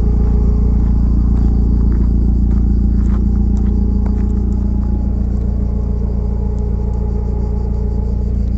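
Car driving on an unpaved off-road track: a steady low engine and tyre rumble with scattered faint light knocks.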